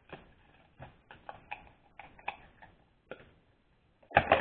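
Small plastic toy accessories and packaging being handled: scattered light clicks and taps, with two louder knocks close together near the end.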